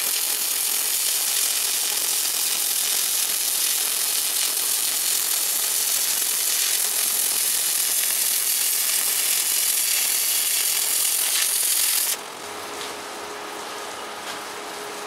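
Stick-welding arc crackling steadily as a 7018 electrode lays a bead on steel plate, then cutting out abruptly about twelve seconds in, leaving a quieter steady hum.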